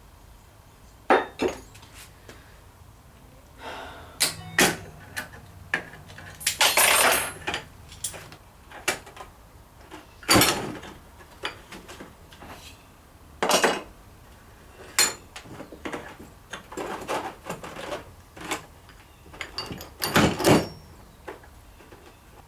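Hand tools and metal winch parts clinking, knocking and scraping at irregular intervals while the winch drum is taken apart, with a few longer scrapes among the sharp knocks.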